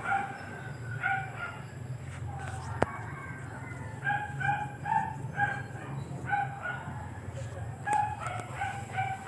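Repeated short animal calls, coming in quick groups of two to four notes, over a steady low hum, with a single sharp click about three seconds in.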